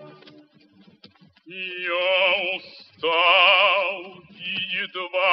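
Operatic baritone voice singing with a wide vibrato. It enters about a second and a half in after a brief near-silent pause and goes on in long, loud held phrases.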